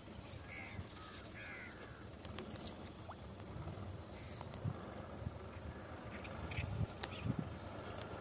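High-pitched insect trill, steady and finely pulsed, breaking off about two seconds in and starting again a few seconds later. A few faint chirps sound in the first second, over a low outdoor rumble.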